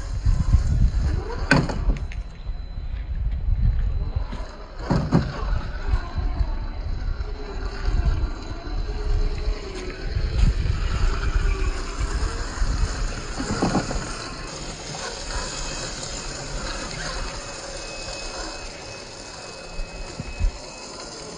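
Traxxas TRX-4 Defender scale crawlers driving over wet rock: electric drivetrain whine and tyres scrabbling on stone, with a low rumble in the first half and three sharp knocks.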